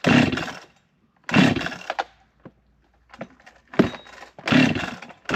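Chainsaw's recoil starter cord pulled three times, each pull a rattling whirr that dies away without the engine catching, with a sharp click between the second and third pulls.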